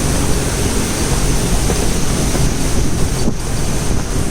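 Gale-force wind gusting to about 42 knots blowing hard over the microphone: a loud, steady rush with a heavy low rumble.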